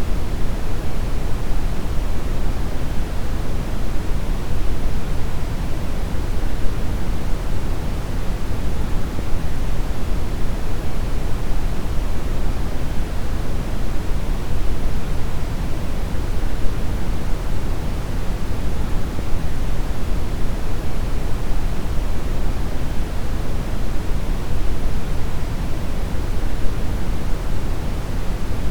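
Steady, loud brown noise: an even deep rushing hiss, heaviest in the bass and thinning toward the highs, with no change.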